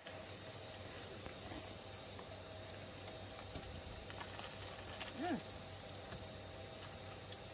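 Insects trilling in one steady, unbroken high-pitched drone, with a short faint chirp about five seconds in.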